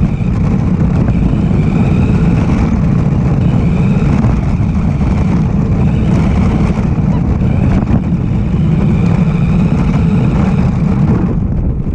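Radio-controlled car driving over pavement: a loud, steady rumble with a motor whine that rises and falls every couple of seconds.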